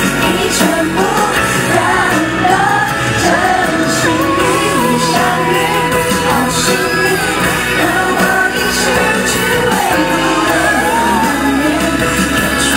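Pop song with a sung vocal over a steady backing track. A long note is held with vibrato about four seconds in.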